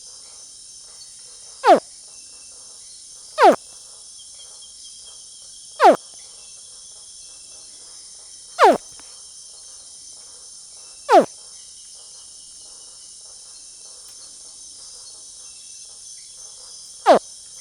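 A small crocodilian about 50 cm long, a young caiman, screaming six times: each scream is a short, sharp call that falls steeply in pitch, and they come a few seconds apart at uneven spacing, the last near the end. A steady chorus of night insects drones high behind them.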